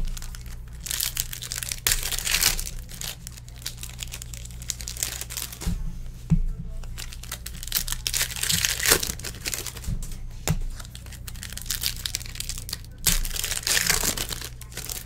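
Football trading-card packs being torn open and crinkled by hand: irregular bursts of wrapper crackling and tearing.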